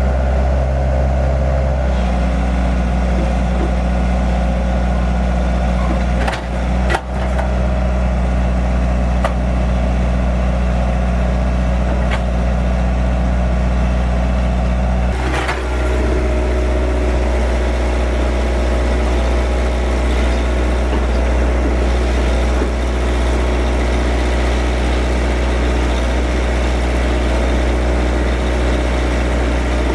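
Kobelco SK115SR excavator's diesel engine running steadily, with a few sharp knocks. Its note shifts about two seconds in and again about halfway through.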